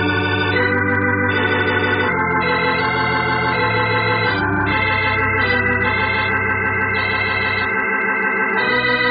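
Organ music: a bridge of held chords, changing every second or two, closing the radio drama's story.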